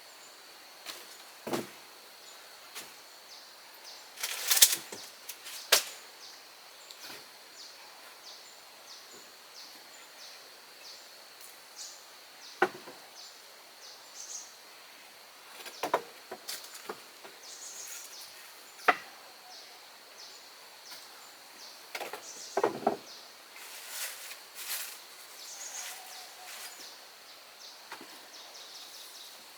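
Scattered sharp knocks and clacks, loudest in a cluster about four to six seconds in and again around twenty-two seconds, over a steady high-pitched insect drone.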